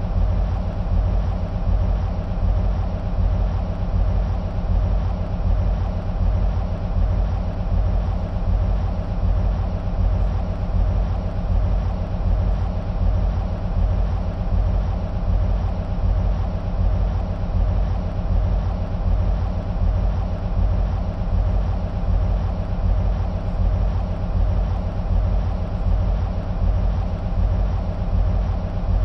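EMD SW1500 switcher locomotives' 12-cylinder two-stroke diesel engines idling: a steady, low, evenly pulsing rumble.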